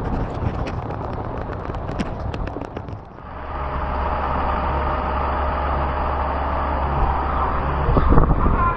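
Strong squall wind buffeting the microphone aboard a sailboat, as a steady rumbling rush. In the first few seconds it is broken by scattered sharp taps and knocks.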